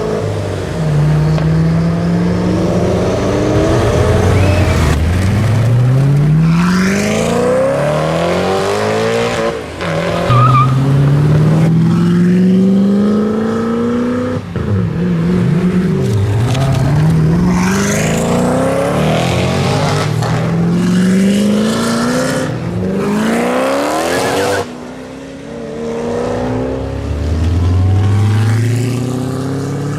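Koenigsegg hypercars' V8 engines accelerating hard at full throttle, the engine note climbing in one sweep after another, each dropping back at a gear change. Several runs follow one another with sudden cuts between them.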